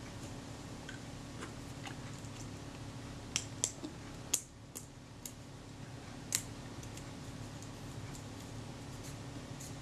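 Light metal clicks and taps as the film rewind shaft of a Kodak Retina IIIS camera is fitted into its freshly greased bush, a handful of them between about three and a half and six and a half seconds in, over a steady low hum.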